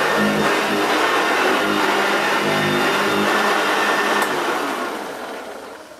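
Hoover Junior 1346A upright vacuum cleaner running steadily with its freshly stripped and rebuilt motor, which sounds absolutely sweet. About four seconds in there is a click, and the motor winds down.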